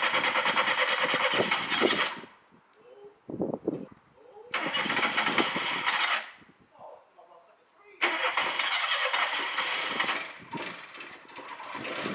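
A Volkswagen Caddy's engine being cranked on the starter three times in short bursts, with pauses between the attempts.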